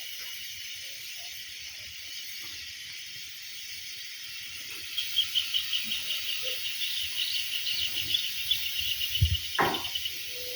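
Outdoor rural ambience with a steady high insect drone. About halfway in a bird starts a fast run of high chirps, several a second, lasting about five seconds, and a short thump sounds near the end.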